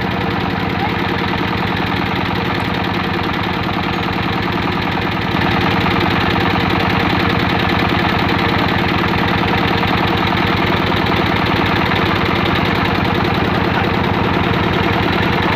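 Single-cylinder Dongfeng ("dompeng") diesel engine running steadily with an even, rapid beat, growing a little louder about five seconds in.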